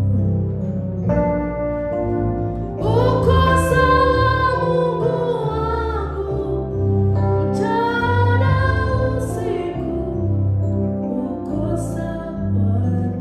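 A woman singing a worship song into a microphone, accompanied by sustained chords on a Yamaha electronic keyboard. She sings two long, wavering held phrases, the first starting about three seconds in and the second around eight seconds, then sings more softly near the end.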